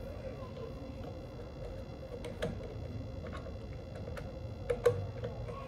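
Small screwdriver working screws in the plastic cyclone housing of a Dyson V8 stick vacuum: a scatter of light clicks and ticks, with two sharper clicks near the end.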